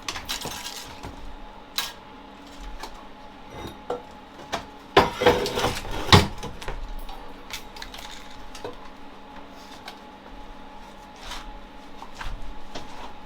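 Metal parts and tools clinking and clanking as they are handled on a workbench, with a quick run of louder clanks about five to six seconds in, over a faint steady hum.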